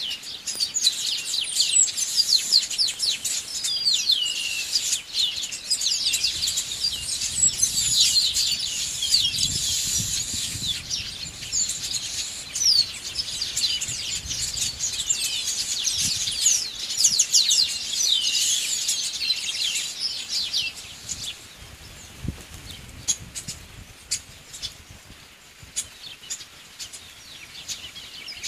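Many birds chirping at once in a dense chorus of quick, falling calls. About two-thirds of the way through the chorus dies down, leaving scattered faint chirps and ticks.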